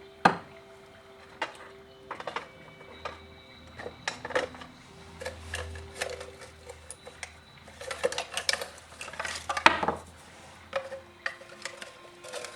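Metal tools and small parts clinking and clattering as they are handled on a workbench: a run of irregular clicks and knocks, with the loudest knocks about a third of a second in and near ten seconds in.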